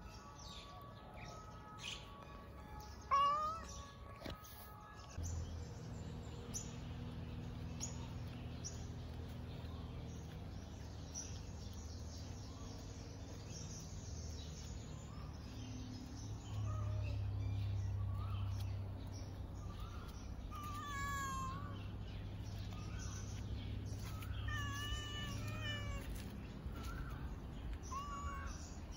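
A cat meowing repeatedly in short calls, over a steady low hum that starts about five seconds in.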